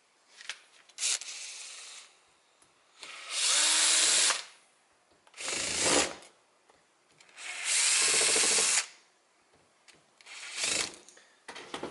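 Cordless drill-driver backing screws out of an electric hammer drill's switch housing, in about five short runs with pauses between, the longest and loudest about a third of the way in and again two-thirds in.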